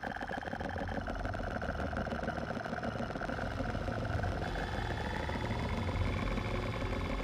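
Synthesized electronic drone: held tones over a low, buzzing rumble, the tones gliding slowly upward from about four seconds in.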